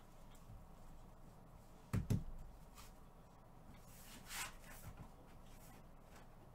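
Handling noises in a quiet small room: two soft knocks in quick succession about two seconds in, then a short swish a couple of seconds later, with a few faint clicks.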